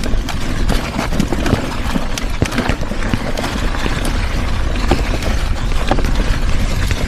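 Handling noise from a clip-on microphone dangling loose off a coat while riding an off-road mobility scooter over a rough trail: a steady low rumble with rubbing and frequent irregular knocks.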